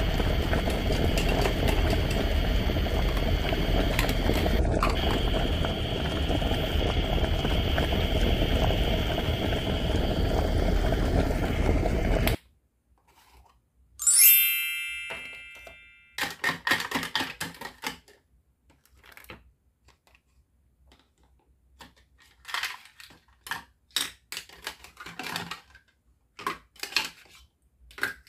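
A steady whirring noise runs and cuts off suddenly about twelve seconds in. A single bright ringing ding follows and fades away, then light clicks and taps of small plastic toy cookware: a lid set on a toy pot and a spoon and bowl handled.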